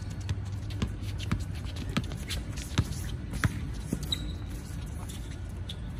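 A basketball bouncing on an outdoor hard court, sharp separate bounces about every half second at first and then more spread out, with sneakers shuffling and scuffing on the court.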